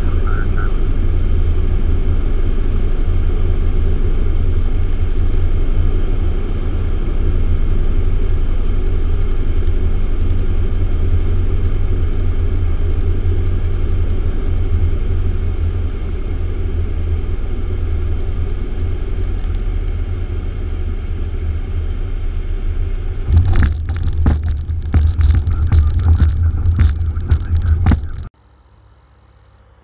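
Piper PA-28 Archer II's four-cylinder Lycoming engine and propeller droning steadily inside the cabin through the approach. Near the end come a run of sharp knocks and rattles as the wheels touch down and roll out. Then the sound cuts suddenly to quiet outdoor ambience with a faint high steady tone.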